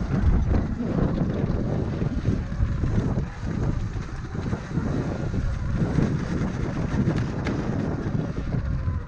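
Wind buffeting an action camera's microphone while riding a Sur-Ron electric dirt bike along a trail: a continuous, uneven rumble that swells and dips.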